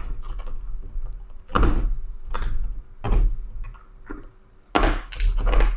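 Knocks and clicks of a football helmet and its visor hardware being handled while the visor's quick-release clips are pushed into place. There are several short knocks about a second apart, with a louder cluster near the end.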